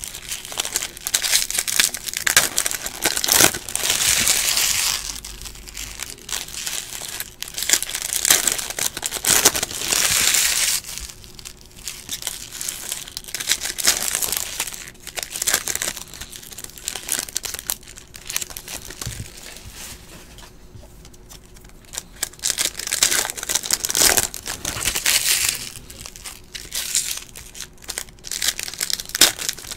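Plastic trading-card pack wrappers being crinkled and handled while the packs are opened, in repeated bursts with a quieter spell about two-thirds through.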